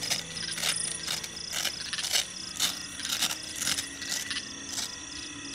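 A rooftop tent's travel cover being worked open by hand on top of a pickup: a run of short rasps and rattles, about two a second. Crickets chirp steadily behind.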